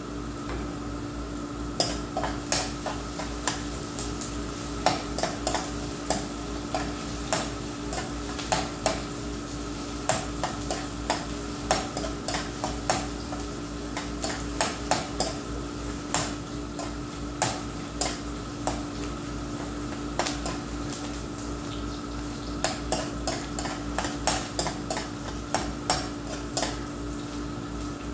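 A metal spatula scraping and clicking against a wok as food is stirred and fried, the strokes irregular and starting about two seconds in, over a faint sizzle and a steady hum.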